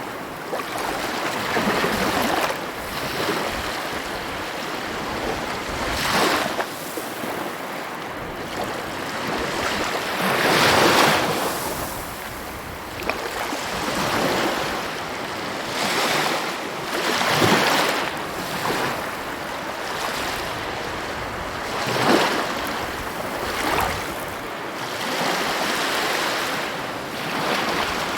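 Sea waves breaking one after another, each surge swelling up and washing away every few seconds over a steady hiss of surf.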